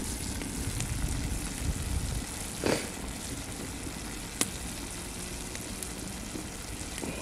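Beef stew simmering and sizzling in a saucepan over a wood fire, with two sharp crackles from the burning wood, one about two and a half seconds in and another a little after four seconds.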